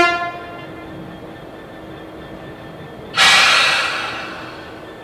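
Diesel locomotive standing with its engine running at a steady hum; the tail of a short horn toot at the very start, then about three seconds in a loud burst of compressed air hissing out, fading away over a second and a half.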